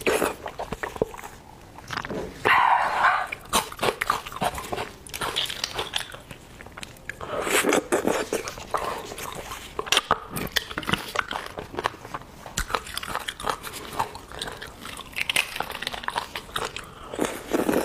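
Close-miked eating sounds from beef bone marrow: wet sucking and slurping of marrow from the bone, with many small mouth clicks and chewing. Two longer, louder slurps come a few seconds in and near the middle.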